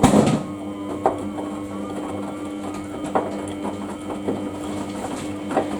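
Samsung washing machine running its Daily Wash 30 cycle: a steady motor hum with a loud rush at the start and sharp knocks about one, three and five and a half seconds in.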